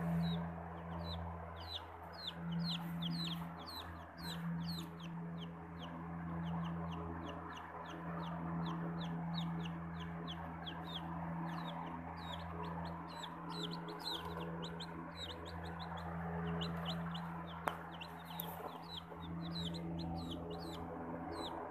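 Australorp chicks peeping without pause, a rapid stream of short downward-sliding chirps, several a second, over a steady low hum.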